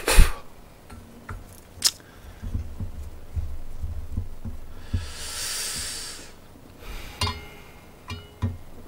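A metal pot lid clinks as it is lifted off, then chopsticks scrape and tap as they stir and lift thick ramen noodles in an aluminium pot. A short hiss comes about five seconds in.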